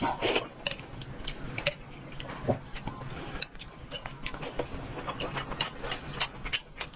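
Eating sounds: irregular clicks and crunches of chewing.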